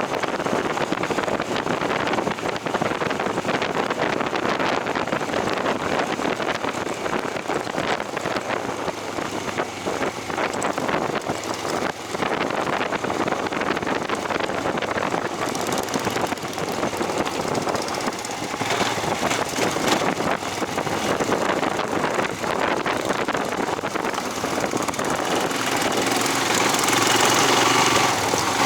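A vehicle engine running steadily while riding, growing louder near the end.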